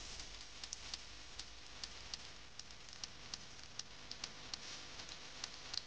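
Aquarium water bubbling: a steady hiss with small, irregular pops and ticks, a few each second.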